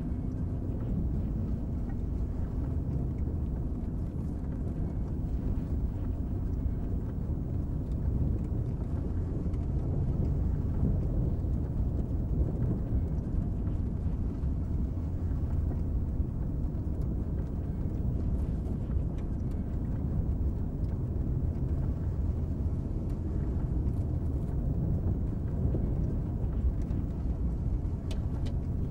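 A car driving at a steady speed: a continuous low rumble of engine and road noise.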